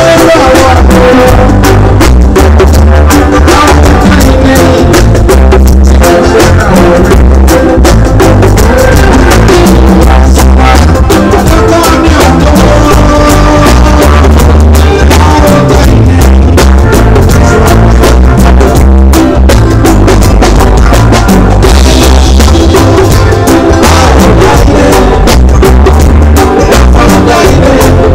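Live highlife band music played loud, with a drum kit and hand drums under a man singing into a microphone.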